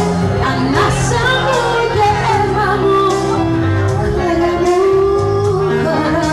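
A woman singing live into a microphone over backing music, holding long notes with a wavering pitch above a steady bass line and light percussion.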